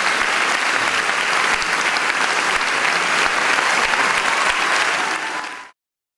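Audience applauding. The applause fades and then cuts off about five and a half seconds in.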